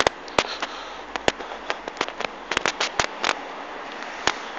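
Irregular sharp clicks and crackles close to the microphone, about a dozen at uneven spacing and some in quick clusters, over a faint steady hiss: handling noise on a hand-held phone camera carried while walking.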